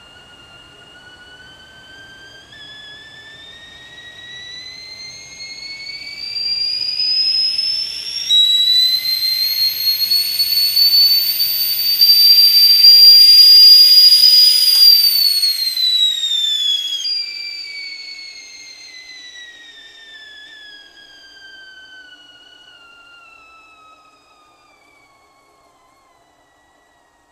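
Kettle whistling: one whistle tone that climbs in pitch and grows louder, jumps up to a higher note about eight seconds in, then drops back to the lower note and glides down, fading away near the end.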